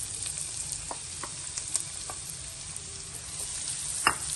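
Chopped onions sizzling in melted butter in a non-stick wok, a steady frying hiss. A wooden spatula knocks and scrapes against the pan a few times as the onions are stirred, loudest about four seconds in.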